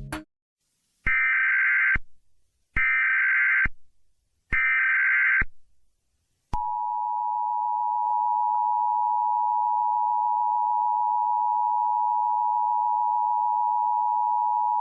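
Emergency Alert System SAME header: three short bursts of digital data screech, each under a second, followed by the EAS two-tone attention signal, a steady 853/960 Hz tone held for about eight seconds.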